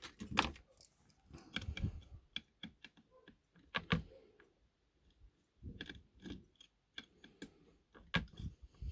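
Irregular light clicks and small clatters of hard little tools being handled and picked through, as small precision screwdrivers are tried for one that fits.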